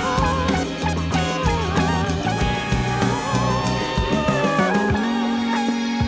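Background music: an upbeat instrumental track with drums, plucked guitar and a wavering melody; the drums drop out about five seconds in.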